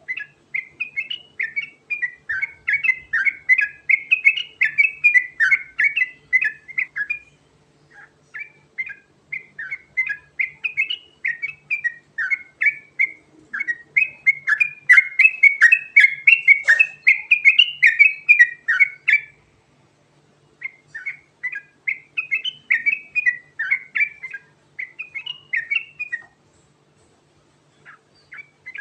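Yellow-vented bulbul (trucukan) singing a fast rolling song: long runs of rapid warbling notes, broken by short pauses about a third of the way in, two-thirds of the way in and near the end.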